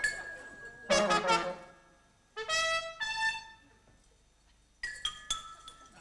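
A comedy band's brass instruments playing short separate blasts of notes with pauses between them. Between the blasts, a few struck metallic notes ring on.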